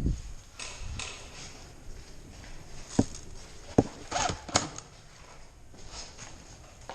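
A thump, then three sharp knocks or clicks a little under a second apart, each with a short ring, amid rustling movement.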